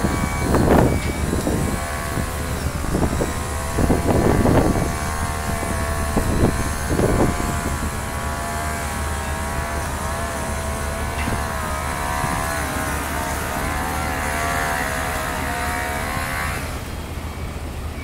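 Heavy diesel engine running steadily with a slightly wavering note, with a few short rushes of noise in the first seven seconds; the sound eases a little near the end.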